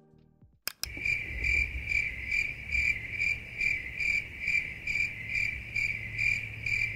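The classic 'awkward silence' crickets sound effect: a cricket chirping in a steady, even rhythm of about two and a half high chirps a second. It starts about a second in, after a brief click.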